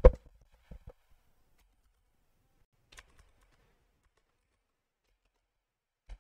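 A few scattered computer keyboard keystrokes, faint isolated clicks with long stretches of near silence between them, after one short, louder knock at the very start.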